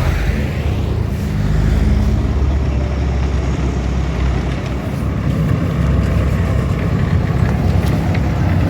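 Motor vehicle engine running steadily with road noise, a low hum whose pitch shifts slightly about halfway through.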